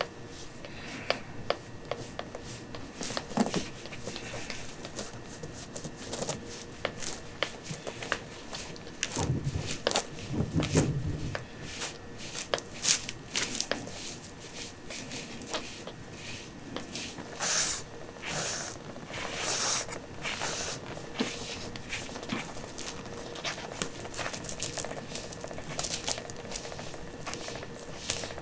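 Rustling and crinkling of a rubber glove and the pad beneath as a gloved hand strokes and handles a newborn kitten, with many small irregular clicks and a couple of heavier bumps about ten seconds in.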